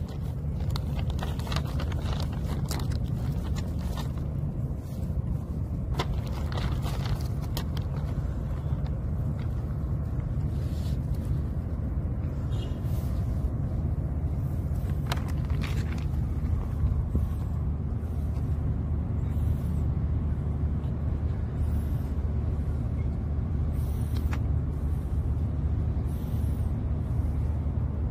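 A vehicle engine idling with a steady low hum, with a few light clicks and scuffs scattered over it.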